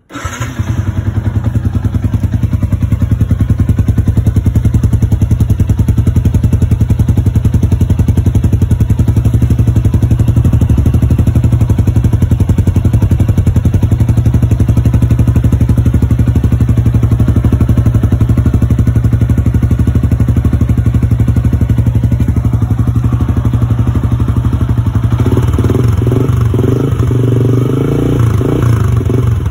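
Motorcycle engine fitted with a King Drag 28mm aftermarket exhaust, starting up and then idling with a loud, steady, deep pulsing note from the exhaust. In the last few seconds the note turns rougher and more uneven.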